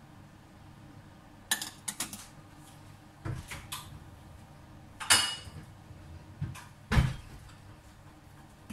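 Clinks and knocks of kitchenware being handled: a small dish set down and a bottle picked up and uncapped. About six short, sharp knocks, the loudest about five and seven seconds in.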